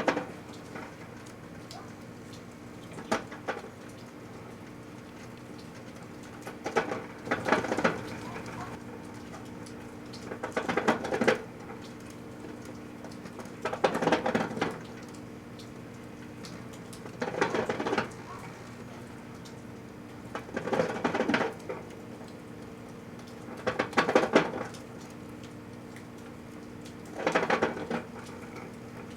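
Microwave oven running with a steady hum, while the toy pig inside gives short bursts of crackling and rattling about every three and a half seconds.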